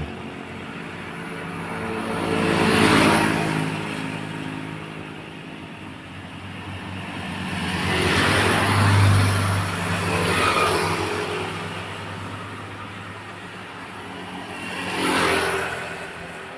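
Road traffic: motor vehicles passing one after another, each swelling up and fading away, with the biggest passes about 3 seconds in, around 8 to 11 seconds, and near the end, over a steady engine hum.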